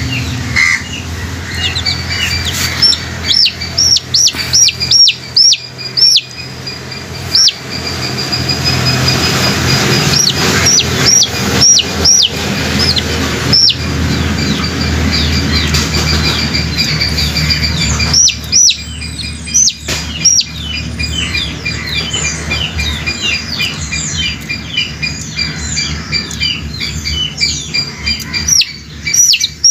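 A young chicken chick peeping loudly and over and over while held in the hand: runs of short, high, falling peeps, several a second at times, the distress calls of a chick being handled.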